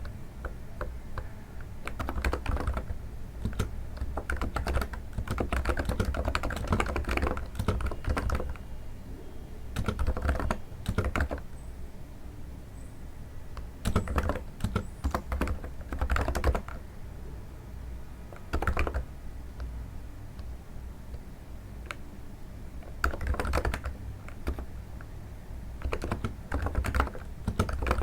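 Typing on a NiZ electro-capacitive keyboard, a keystroke sound likened to stepping on snow. It comes in bursts of quick keystrokes with short pauses between them.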